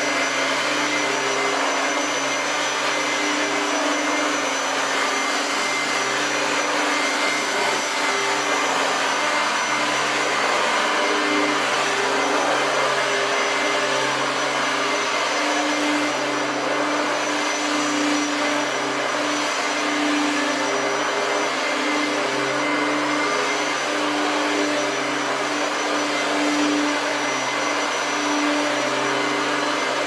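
Kenmore 3116 Heavy Duty Plus upright vacuum cleaner, made by Whirlpool for Sears, running on its low speed setting while being pushed over carpet. It is still loud: a steady rush of motor and airflow with a thin high whine on top.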